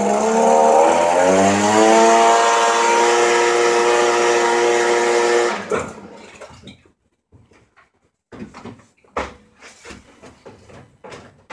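Small Stihl two-stroke engine running after a cold start at ten below zero: its pitch rises about a second in and holds steady, then it cuts off suddenly just over five seconds in. Scattered knocks and clicks of handling follow.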